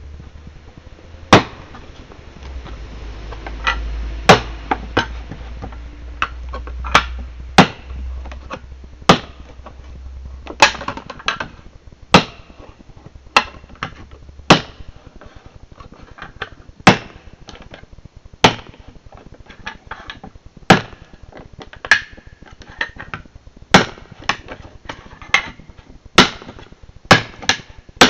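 A series of sharp, hard knocks, about one a second at uneven intervals, each dying away quickly, over a low rumble that fades out about ten seconds in.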